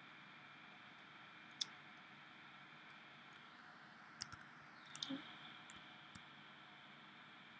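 A handful of short, sharp computer mouse clicks, spread over a few seconds, above a faint steady background hiss.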